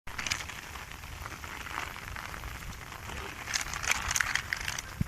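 Rain falling steadily, an even patter with many sharp drop clicks, busier about three and a half to four and a half seconds in.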